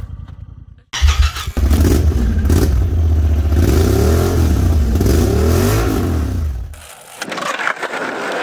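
An engine starts suddenly about a second in and revs up and down twice with a heavy low rumble, then dies away near the end.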